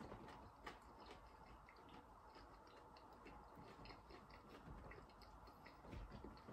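Near silence with faint, irregular soft clicks of a person chewing food with the mouth closed.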